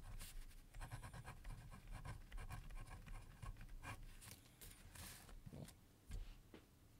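Pen writing on paper: faint, quick scratching strokes of handwriting that stop about six seconds in.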